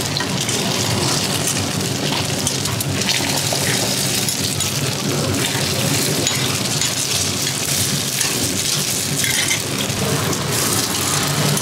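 Tainan rice cakes and eggs frying in oil on a flat-top griddle: a steady, dense crackling sizzle.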